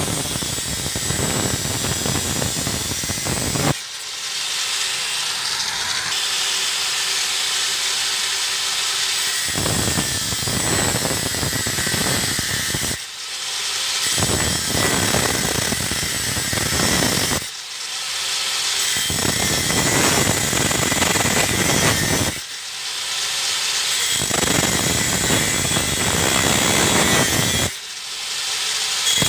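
Angle grinder with a thin 125 mm, 0.8 mm type 42 cut-off wheel cutting steel: a harsh, steady grinding hiss. It is broken by short lulls about five times, between successive cuts.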